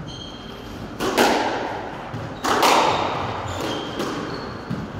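Squash rally: two sharp, echoing smacks of the ball being struck and hitting the walls, about a second and a half apart, with a few brief high squeaks of shoes on the wooden court floor.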